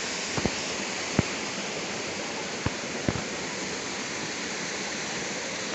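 A steady, even rushing noise, with a few sharp clicks in the first three seconds.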